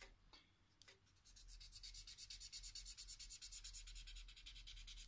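Felt-tip marker scribbling on paper in quick, even back-and-forth strokes, filling an area in solid black. The strokes start about a second in, after a moment's pause and a couple of light taps.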